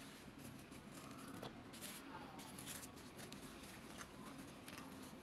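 Faint rustling of a paper napkin being unfolded and pressed to the mouth, with a few small handling clicks over quiet room tone.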